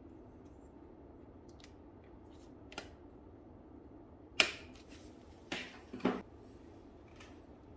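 Metal clicks from needle-nose pliers working the shift-cable fitting on a bicycle gearbox. A faint click comes first, then a loud sharp click about halfway through, then two more clicks close together about a second later.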